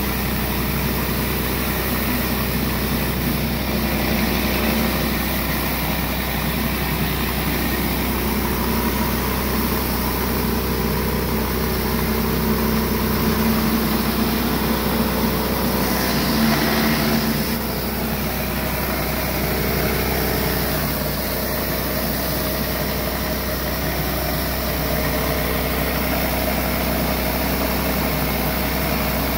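A pressure washer running steadily, with the hiss of water jets spraying inside a 15-inch Surface Maxx surface cleaner as it is pushed across concrete. The hiss swells briefly a little past halfway.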